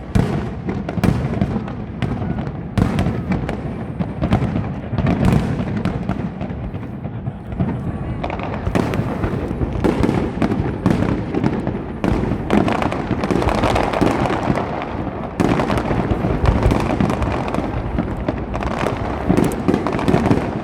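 Fireworks display: a dense, continuous barrage of aerial shell bursts and crackles, the bangs coming several a second and overlapping throughout.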